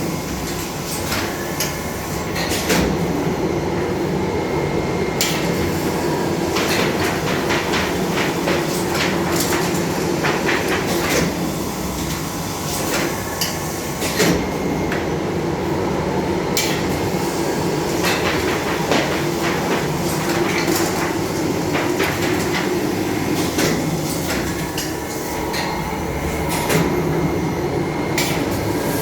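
Semi-automatic clamshell screen printing machine running: a steady hum with frequent irregular clicks and clacks from the mechanism.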